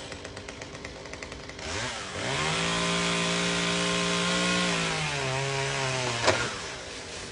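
Two-stroke chainsaw idling unevenly, then revved up to full throttle and held there while it cuts into the palm trunk. Its pitch drops under load about five seconds in, and a sharp crack follows a second later.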